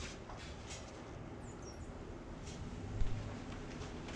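Low rumble of a non-running 1970 Lincoln Mark III being pulled by chain out of a garage, with a few faint high squeaks about one and a half seconds in and a single knock about three seconds in.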